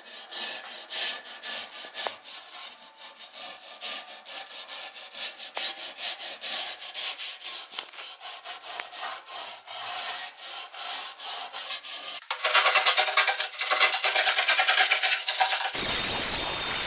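Blue paint being rubbed and scraped off a metal door strip by hand in quick back-and-forth strokes, getting louder and faster about twelve seconds in. Near the end a power sander starts up with a steady hiss and a thin high whine.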